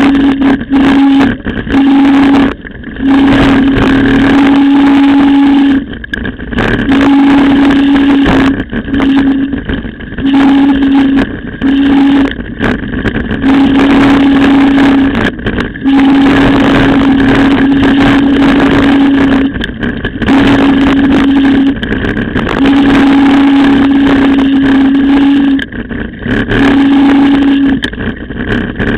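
Rumble, rattle and wind noise picked up by a camera mounted on a mountain bike riding a gravel road, with a steady low hum that cuts in and out every second or few seconds.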